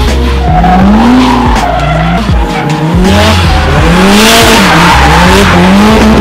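Drift car engine revving up and down over and over as the throttle is worked mid-slide, with tyres screeching and skidding. The tyre noise is loudest about four seconds in.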